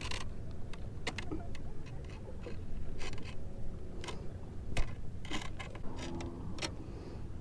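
Scattered clicks and scrapes as hands unhook a flounder on a granite rock, with the fish and the lure tapping against the stone, over a steady low rumble.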